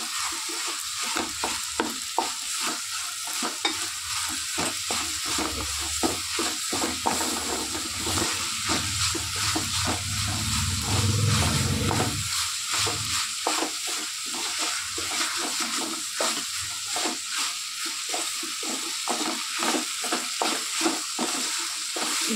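Wooden spoon stirring pasta and vegetables in a metal pan, scraping and knocking the metal in quick repeated strokes over a steady sizzle of frying.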